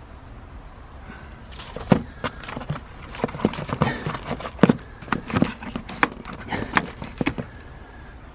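Fireworks and their cardboard selection box being handled: an irregular run of knocks, taps and rustles for about six seconds as items are lifted out and set down.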